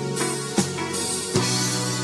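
A live band plays an instrumental stretch between sung lines: electric guitar, drum kit and trombone holding steady notes. Two sharper drum hits land about half a second and a second and a half in.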